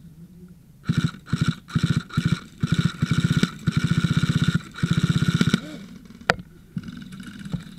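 Electric airsoft gun firing on full auto in a string of bursts, several short ones first and then longer bursts of about a second each, stopping about five and a half seconds in. A single sharp click follows shortly after.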